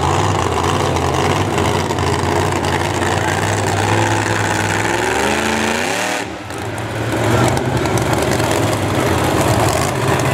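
Monster truck engines running loud with a steady low rumble; about four seconds in, an engine revs up in a rising sweep that cuts off briefly around the six-second mark before the rumble carries on.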